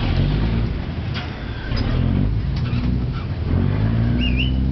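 A boat's engine running at a river pier, a steady low drone that rises and falls slightly in pitch. A short high warbling whistle sounds near the end.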